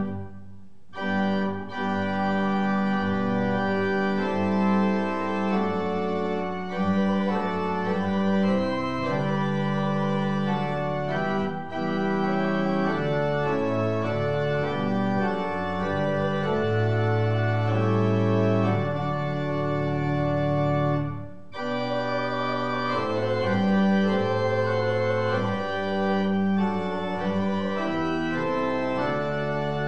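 Pipe organ playing a slow piece in sustained chords, with short breaks between phrases about a second in and about two-thirds of the way through.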